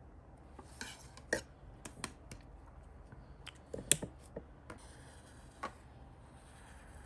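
Journaling stationery being handled on a desk: a scattered series of light clicks and taps of small hard objects set down and picked up, the two loudest about a second in and near four seconds, with a short rustle near the start.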